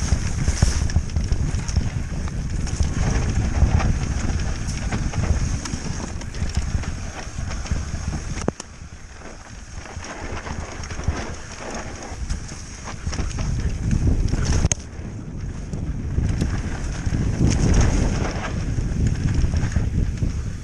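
Wind buffeting a chest-mounted camera's microphone as a mountain bike rattles down a dry dirt trail. About eight and a half seconds in there is a sharp knock and the rush suddenly drops, while the rider goes off the line into the trailside bushes. The wind and trail noise build again near the end.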